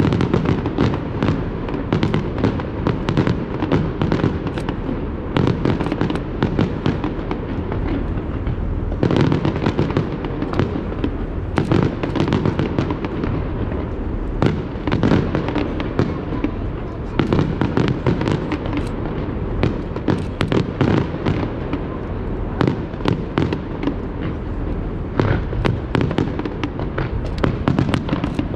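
Aerial fireworks going off in a continuous barrage: many overlapping bangs and crackles, packed closely over a constant low rumble, with no pause.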